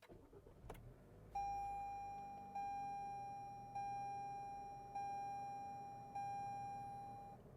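Toyota RAV4 dashboard chime ringing five times, about one strike every 1.2 seconds, each note fading before the next, as the car is restarted. A click sounds about a second before the first chime, and a faint low hum runs beneath.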